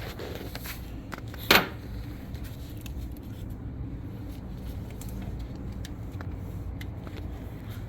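Steady low engine rumble of a car, with one sharp click about one and a half seconds in.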